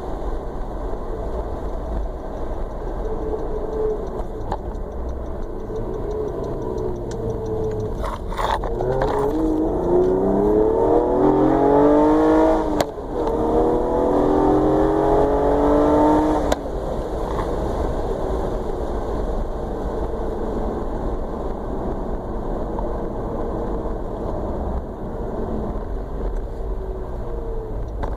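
A motor vehicle's engine running steadily, then rising in pitch twice for about eight seconds with a short break between, before settling back to a steady run.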